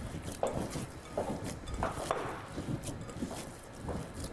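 Hands kneading and squeezing a minced-meat meatball mixture in a bowl, with short irregular knocks and clicks.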